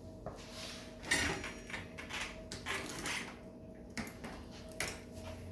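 Light metal clinks, clicks and short scraping rattles of a mountain bike being handled as its wheel is taken off. The louder clicks come about a second in and again around four and five seconds in.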